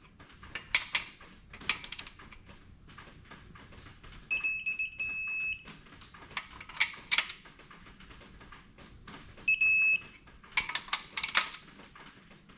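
Digital torque wrench beeping a steady high tone as it reaches the set torque on the engine's main-cap bolts: a long beep about four seconds in and a shorter one near ten seconds. Between the beeps come short runs of ratchet clicking as the wrench is worked.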